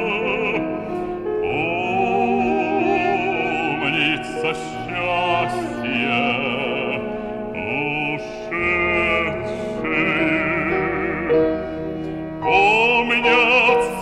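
A male bass voice singing a slow Russian romance in operatic style, long held notes with wide vibrato, over instrumental accompaniment.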